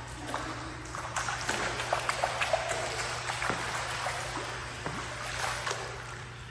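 Water splashing and sloshing in an indoor swimming pool, with many small irregular splashes, over a steady low hum.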